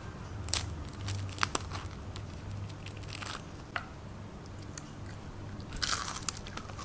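Thin, crisp rice-flour crepes (kue leker) cracking and crunching as hands snap and tear them apart. The crunches come singly at first, then thicken into a dense crackle about six seconds in, over a faint low hum.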